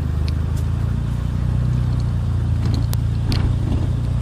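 Turbocharged Daihatsu L7's engine running at a steady pitch while the car is being driven, with a few faint sharp clicks now and then.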